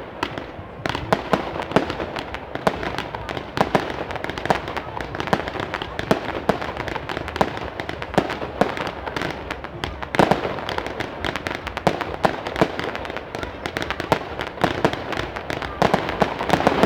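Fireworks going off: a dense, continuous run of sharp bangs and crackles, some louder reports standing out among them.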